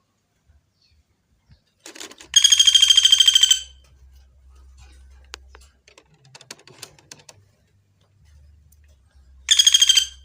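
Common flameback woodpecker giving a loud, rapid rattling call, about a dozen notes a second. A call of about a second comes two seconds in and a shorter one near the end, with faint clicks between.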